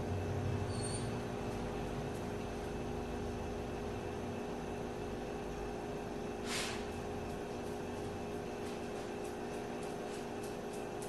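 A steady mechanical hum, with a short hiss about six and a half seconds in.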